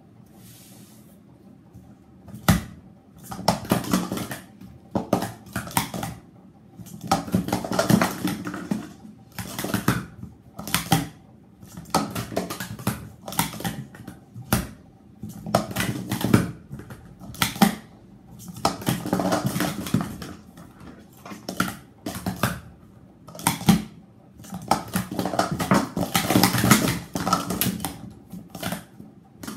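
Blue Speed Stacks sport-stacking cups being rapidly stacked up and down on a stacking mat: fast runs of hollow plastic clicks and clatters as the cups are set down, nested and slid together, repeated with short pauses between runs.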